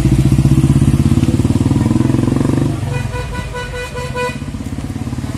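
A motorcycle engine passes close by with a fast-pulsing exhaust, then a vehicle horn sounds in a rapid string of short beeps about three seconds in, over steady road traffic.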